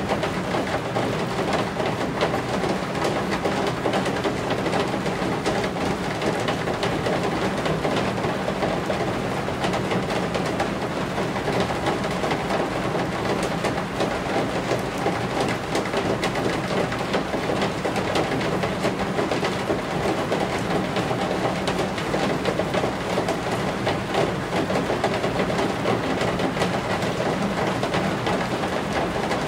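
Steady rain falling on the roof eaves: a dense, even patter of drops with a low continuous rumble beneath it.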